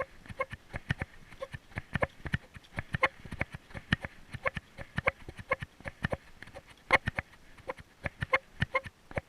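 An animal making rapid, irregular popping clicks, several a second, some sharper and louder than others.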